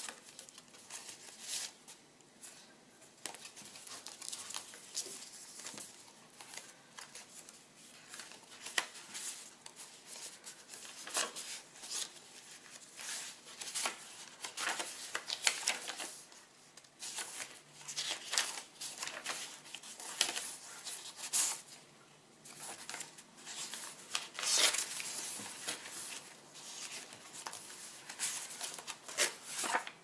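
Paper pages and tucked cards of a handmade journal being turned and handled: a string of paper rustles and flicks, busier in the second half.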